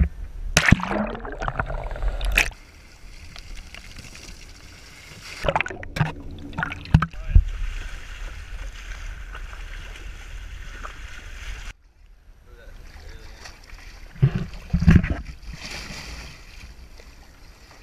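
Water splashing and sloshing in several loud bursts against a boat's side as a big fish thrashes and is grabbed by hand, over steady wind and water noise on an action camera's microphone.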